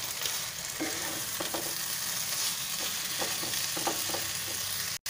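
Amaranth greens with pumpkin and potato sizzling in hot oil in a nonstick kadai while being stirred with a wooden spatula. The sound drops out for an instant near the end.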